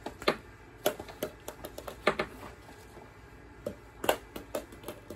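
Two ping-pong balls bouncing on a hardwood floor: a string of sharp clicks, the bounces coming faster and faster as each ball settles, in runs about a second in and again near the end.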